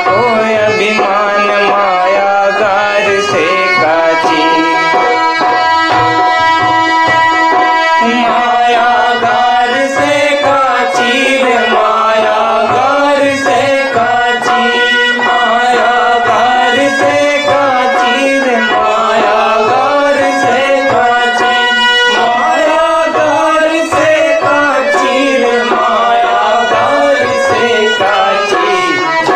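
Indian devotional music: tabla keeping a steady beat under long held notes, with a wavering melody taking over about eight seconds in.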